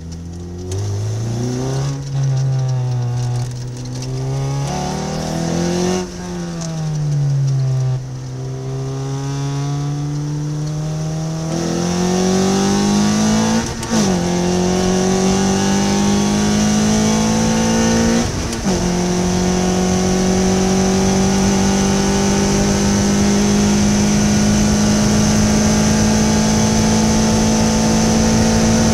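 Ariel Atom's engine heard from the open cockpit on track, revving up and down through a twisty section, then accelerating hard with two quick upshifts, the pitch dropping sharply at each, and pulling steadily higher down a long straight.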